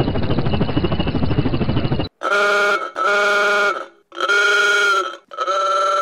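A helicopter's rotor chop in a muffled, lo-fi edit, cutting off suddenly about two seconds in. Then a vehicle horn sounds in four short honks, each under a second long, the last still going at the end.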